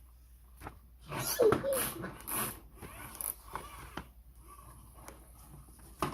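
Packaging being handled during unboxing: crinkling and rustling of paper and plastic, loudest in a cluster of bursts a little over a second in, with a brief pitched voice-like sound mixed into it, then softer handling noises.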